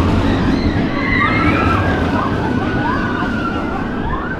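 Steady rumble of a spinning roller coaster's cars running along the steel track, with high wavering screams from riders over it.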